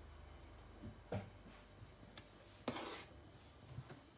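A spoon scraping as cake batter is scooped and dropped into a muffin pan: a short scrape about a second in and a longer, louder one near three seconds.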